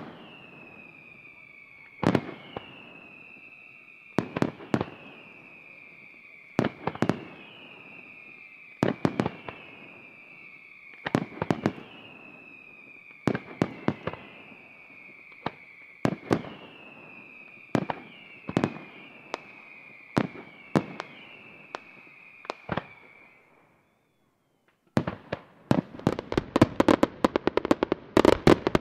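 Aerial firework shells going off in a steady sequence about every two seconds: a bang or two, each followed by a long whistle that falls slowly in pitch. A little before the end there is a brief silence, then a dense run of rapid bangs and crackling.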